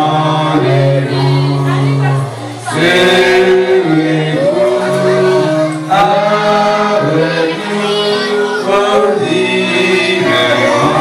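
Two men singing a worship hymn into microphones, amplified through a PA, over steady held accompaniment notes.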